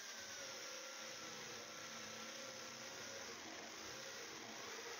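Electric hand drill running steadily as it bores a hole through the sheet-steel door of an electrical distribution panel. Its whine wavers slightly in pitch.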